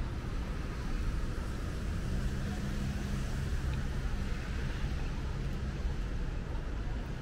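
Steady city road traffic noise, with a low vehicle engine hum standing out for a few seconds from about two seconds in.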